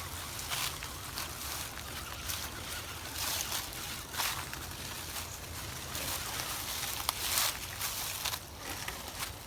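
Water sloshing and splashing as an Axial SCX10 Deadbolt RC rock crawler works through a shallow stream, with several short, irregular splashes.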